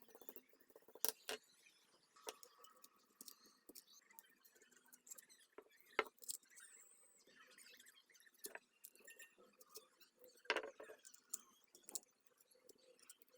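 Faint scratching, rustling and small clicks of hand work on a metal Zippo lighter and its parts, with three sharper knocks spread through.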